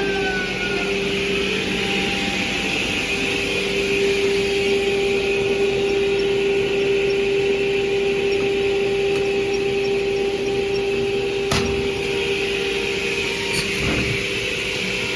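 LTT MF367J automatic edge banding machine running: a steady hum with a constant whine and hiss, and two sharp knocks about eleven and a half and fourteen seconds in.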